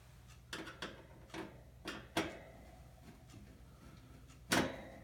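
A series of short clicks and knocks from range hood parts being handled, with one louder knock near the end, over a faint low hum.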